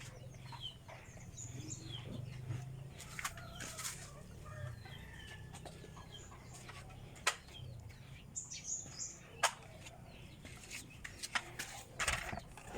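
Scattered sharp clicks and knocks, with bird chirps and a faint low hum behind them.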